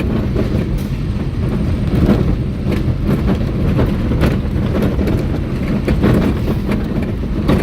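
Vehicle driving along, heard from inside: steady low rumble of engine and tyre noise with occasional small knocks from the road surface.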